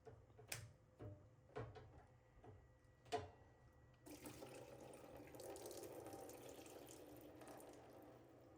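A few clicks and knocks of handling, then about four seconds in water suddenly starts running out of the washer's opened drain pump into a bucket, easing off slightly toward the end.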